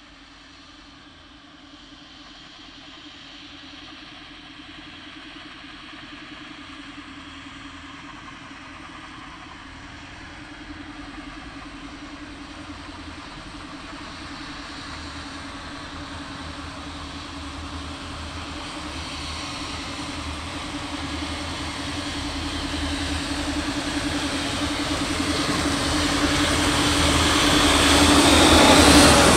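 Sentinel steam locomotive No 7492, a geared vertical-boiler shunter, working towards the listener with a train: its rapid exhaust beats run together into a steady chatter that grows louder. Near the end it passes close, with the coaches' wheels rolling by on the rails.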